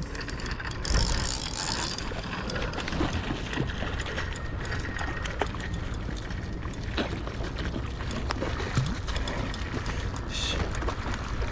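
A hooked fish splashing and thrashing at the water's surface, over a steady rushing noise with scattered small clicks and a brief hiss about one to two seconds in.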